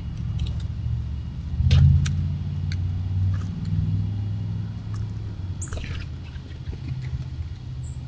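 A low, steady engine-like rumble, loudest about two seconds in, with short bird chirps and ticks above it and one downward-sweeping bird call near six seconds in.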